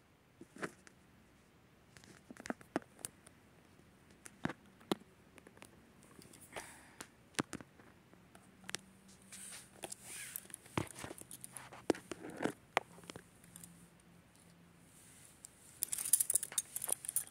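Scattered light clicks and handling knocks at irregular intervals, with a short burst of rustling near the end.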